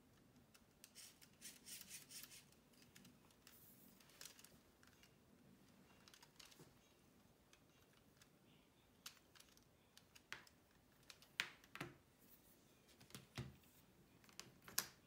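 Plastic LEGO SPIKE Prime parts being handled and fitted together: faint rustling and scattered small clicks, with a few sharper, louder clicks and knocks in the last five seconds.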